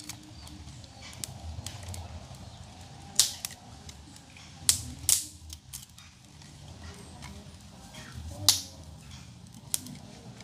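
Wood fire crackling, with a few loud, sharp pops a second or more apart over a low rumble.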